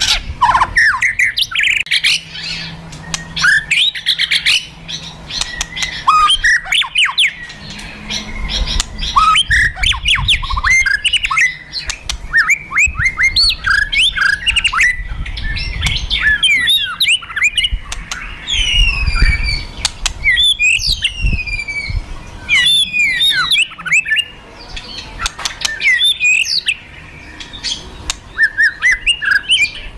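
White-rumped shama (murai batu) giving aggressive fighting calls: rapid harsh rattling clicks (kretekan) mixed with sharp whistled notes and high downward-sweeping whistles, loud and almost without a break.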